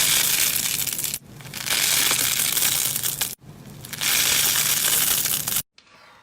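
Slime being squeezed and pressed by hand, crunching loudly in three stretches that break off suddenly about a second in and again after about three and a half seconds, then stop abruptly near the end.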